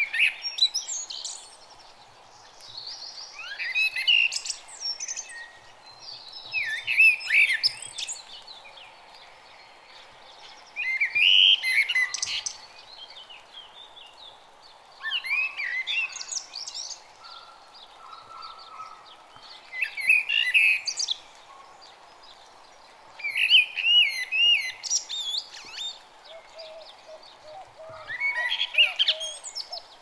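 A songbird singing short, warbling phrases, one about every four seconds, over a faint steady hiss. Near the end a quick run of short, lower notes joins in.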